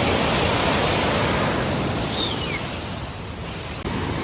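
Steady rush of flowing water, thinning slightly about three seconds in and coming back abruptly near the end. A short high falling whistle sounds about two seconds in.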